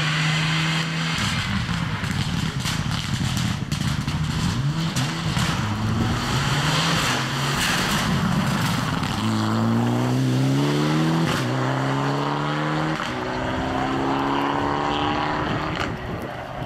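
Mitsubishi Lancer Evolution X rally car's turbocharged four-cylinder engine at full throttle on a stage, its pitch stepping down and up with gear changes and sharp crackles and pops off the throttle. In the second half it accelerates hard, its pitch climbing and dropping with each upshift, then fades as the car drives away near the end.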